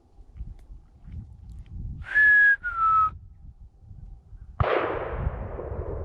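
A person whistles two short notes, the second a little lower and sliding down. About a second and a half later comes a single shotgun blast that rolls away in a long echo.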